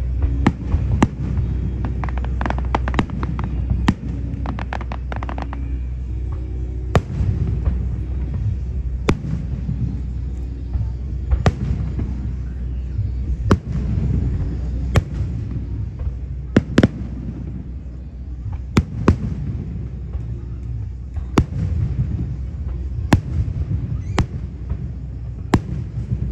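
Aerial fireworks shells bursting: sharp bangs every second or two, with a quick run of rapid crackling from about two to five seconds in, over a steady low rumble.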